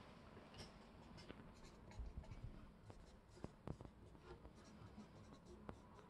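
Faint scratching of a felt-tip marker writing on the back of a playing card, with a few light ticks.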